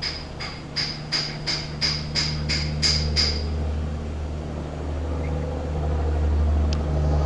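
Electronic vehicle warning chime beeping about three times a second, ten beeps that stop a little over three seconds in, just after the ignition key is switched off. A steady low hum runs underneath.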